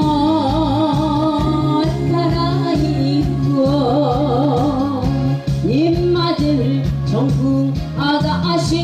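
A woman singing into a microphone over accompaniment with a steady beat, holding long notes with a wide vibrato.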